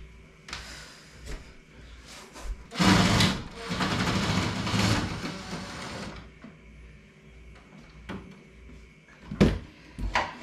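Cordless drill-driver running for about three seconds, working at a stripped screw in a wooden base cabinet. Two sharp knocks against the cabinet near the end.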